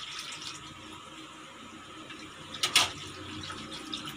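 Cornstarch-and-water slurry being stirred in a stainless steel bowl: a soft, steady liquid swishing, with one short clatter of the utensil against the bowl about two-thirds of the way through.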